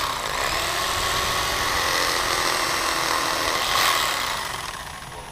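Corded electric fillet knife running steadily as its reciprocating blades cut through a catfish fillet, a steady buzz with a mid-pitched hum. It winds down and stops about four and a half seconds in.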